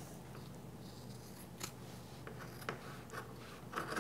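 Scissors cutting through thick vinyl faux-leather fabric, with a few sharp snips of the blades.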